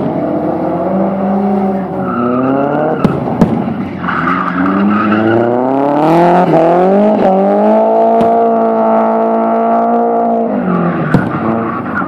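A drift car's engine revving up and down as the car slides sideways, with tyres skidding and squealing. The engine holds at high revs for a few seconds in the middle, then falls away near the end, and a few sharp cracks punctuate it.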